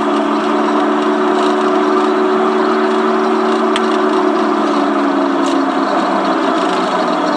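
A vehicle engine running with a steady droning hum of several held tones. The tones shift slightly about five to six seconds in.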